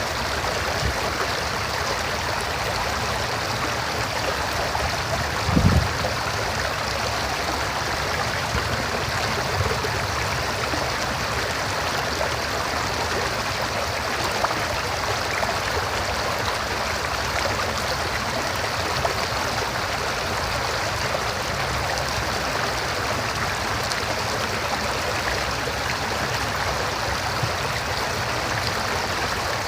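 River water flowing over rocks: a steady rush with gurgling, and one brief low thump about five and a half seconds in.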